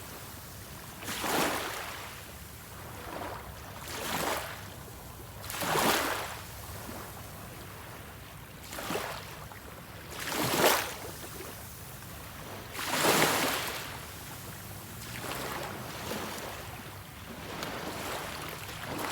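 Sea waves washing in one after another, each a rush of surf that swells and fades every two to three seconds, the strongest about halfway through.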